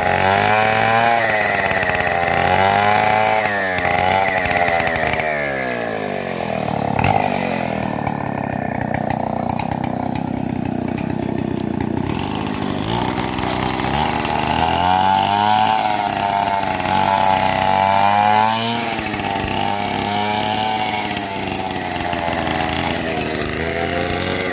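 Chainsaw cutting timber freehand, its engine pitch rising and falling again and again as the bar is worked through the wood, with a steadier, lower-pitched stretch under load about a third of the way in.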